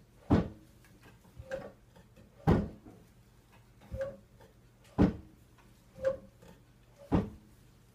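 Wooden kitchen cabinet drawer knocked and banged repeatedly by a toddler's hand: four loud knocks about two seconds apart, with softer knocks between them.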